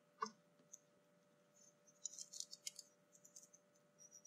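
A light click, then from about two seconds in faint, repeated scratching strokes of a hobby knife blade drawn across a Kevlar-thread battery strap. The Kevlar weave resists the cut.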